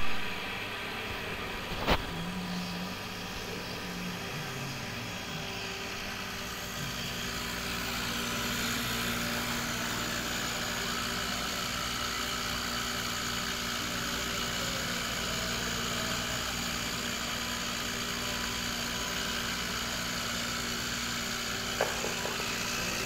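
Small desktop five-axis CNC milling machine rough-machining a turbine: the spindle runs steadily as the cutter works the part, while the axis motors hum in faint steady tones that shift as the axes move. A sharp click about two seconds in and a smaller one near the end.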